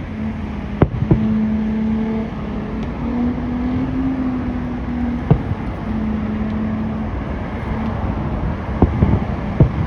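Fireworks shells bursting at a distance: about six sharp bangs, two about a second in, one mid-way and three close together near the end. Underneath runs a steady rumble with a low hum that wavers slightly in pitch.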